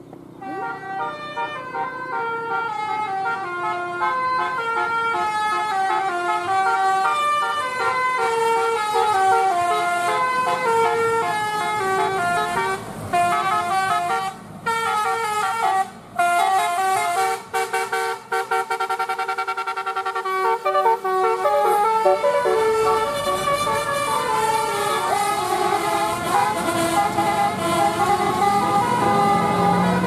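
Tour bus's Basuri-type multi-tone telolet air horn playing a long melody of short stepping notes, with a few brief breaks partway through. The bus's engine comes up underneath near the end.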